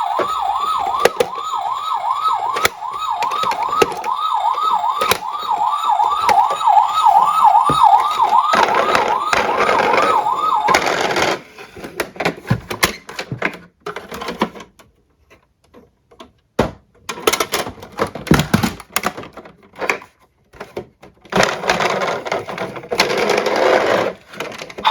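An electronic emergency siren wails fast, rising and falling about three times a second, and cuts off about eleven seconds in. After it come scattered clicks and clacks of small toy cars, and a few seconds of rattling near the end.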